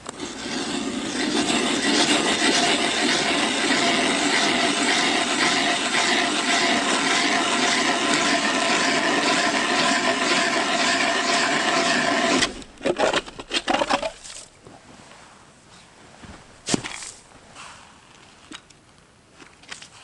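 Hand ice auger drilling a hole through first ice: a steady, rhythmic scraping of the blades cutting ice for about twelve seconds. It stops suddenly, giving way to a few rattling knocks as the auger is pulled out, and one sharp knock near the end.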